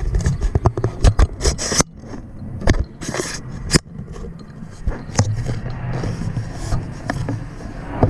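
Knocks, clatter and scraping of tools and parts being handled on a workbench. A quick run of sharp knocks comes in the first two seconds, a short scrape about three seconds in, then lighter handling noise.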